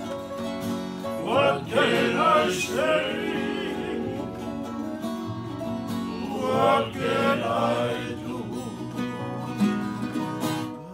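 Voices singing to strummed acoustic guitar and ukulele, with the singing swelling into two louder phrases.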